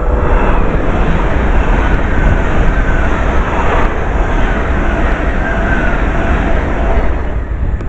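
Train passing through the station at speed: a steady rush of wheel and running noise with faint whining tones. There is low wind rumble on the microphone.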